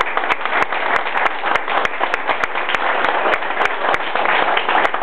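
A group of people applauding: many overlapping hand claps, steady throughout.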